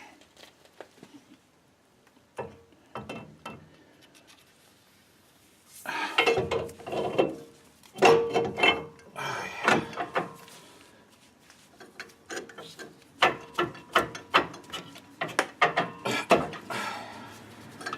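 Rebuilt axle shaft being slid into a Ford 8-inch rear axle housing, with irregular metal clicks, clunks and scraping as it goes in and its splines work to seat in the differential. The noises come in two busy stretches, after a quiet start.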